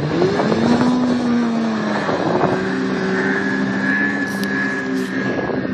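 Snowmobile engine revving up as the sled accelerates onto open water and skims across it, its pitch rising in the first second and then holding steady at high revs.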